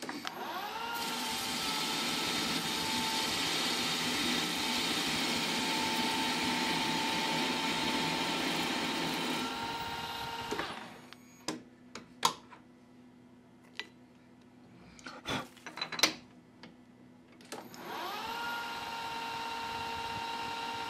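Milling machine spindle spinning up with a rising whine and running steadily while the tool cuts a small metal ball-shaped part. It stops about ten seconds in, a few separate clicks and knocks follow, and then the spindle spins up again and runs on.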